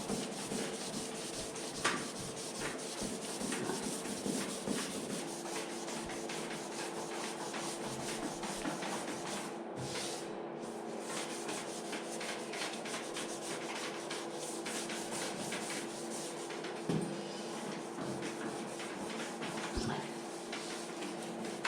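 Abrasive paper rubbing over the lacquered Lambretta side panel in steady, rapid strokes, flatting the clear coat over the metal flake paint between coats. A few light knocks come about 2, 17 and 20 seconds in.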